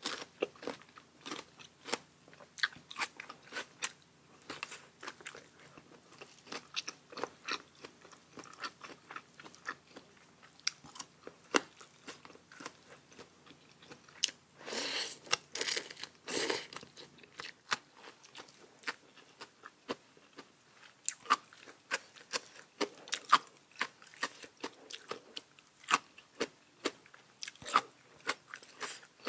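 A person chewing and crunching food from a papaya salad meal, with many quick crunchy bites. About halfway through comes a louder noisy sound lasting about two seconds.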